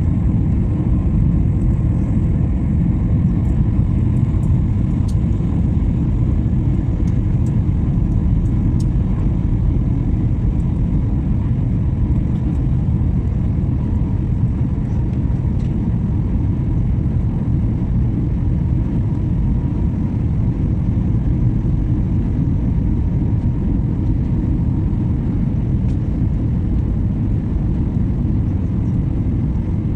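Steady jet airliner cabin noise: a deep, even rumble of the engines and the airflow over the fuselage, with a faint steady hum above it.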